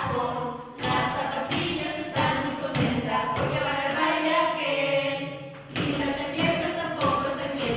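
Music of several voices singing together, choir-like, with some sharp strokes in the sound.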